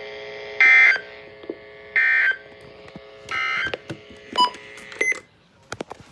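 Weather radio sending three short warbling SAME data bursts, each under half a second and about 1.4 s apart: the end-of-message code that closes an emergency alert broadcast. Two brief beeps follow near the end.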